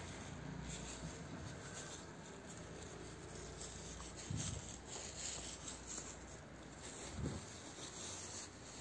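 Soft rustling of a hand rubbing a puppy's fur and the cloth under it, with two brief low sounds about four and seven seconds in.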